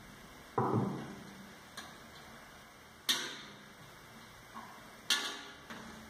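A series of sharp clicks and knocks as parts are handled and fitted inside an opened microwave oven's sheet-metal cabinet while its bimetallic thermal protectors are put back. There is a duller knock a little over half a second in, and the two loudest, sharpest clicks come at about three and five seconds in, with smaller clicks between.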